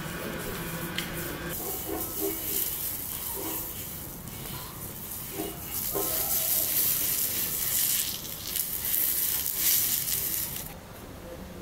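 Fish searing on a hot cast-iron griddle, sizzling with a steady hiss that grows louder about halfway through and stops abruptly near the end.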